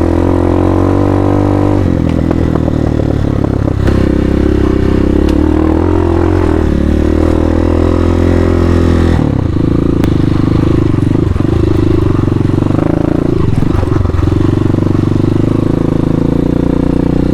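Hawk 250 dual-sport motorcycle's 250cc engine running hard while riding off-road in mud. Its pitch shifts with throttle and gears, with several sharp drops and recoveries in the second half.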